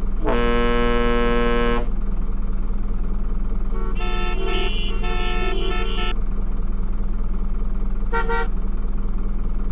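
Electronic horn sounds from toy cars: a steady honk lasting about a second and a half, then a short jingle of changing notes, then a brief beep near the end. A steady low hum runs underneath.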